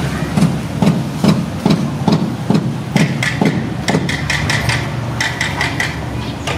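Repeated knocking, like hammering, about two to three blows a second, fading out about four seconds in, over a low steady hum.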